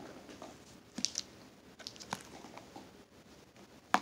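Small plastic mini slime containers knocking and clicking together as a hand rummages through a pile of them and picks them out: a few scattered light taps.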